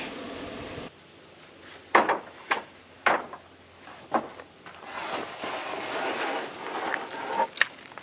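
Sawn wooden boards being handled: a few sharp wooden knocks about two to four seconds in, then wood scraping and rubbing as a long board is drawn out, with one more knock near the end.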